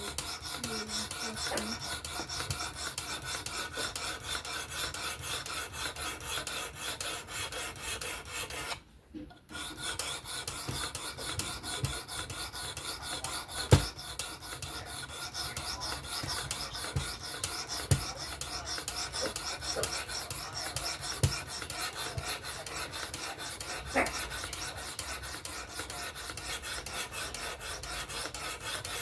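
Abrasive stone of a fixed-angle sharpener stroked rapidly back and forth along the edge of a Vosteed Acorn knife blade: a steady scraping rasp. The scraping stops briefly about nine seconds in, and a few sharp clicks come in the second half.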